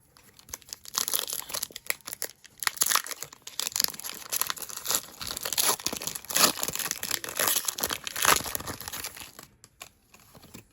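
Foil wrapper of a Pokémon card booster pack being torn open and crinkled in the hands: a long stretch of crackling and rustling that dies away about a second before the end.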